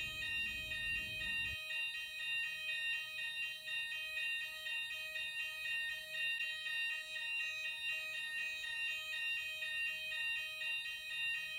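Building fire alarm sounders going off during a weekly test, set off from a manual call point: a steady electronic alarm made of several high tones, repeating in a regular rhythm.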